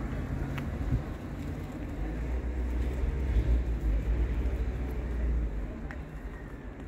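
Low rumble of a vehicle engine, swelling about two seconds in and easing off after five, with a few light clicks.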